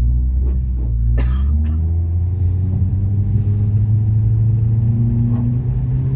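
Mitsubishi Lancer with an HKS axle-back exhaust accelerating, heard from inside the cabin. The exhaust note climbs steadily in pitch after a short click about a second in.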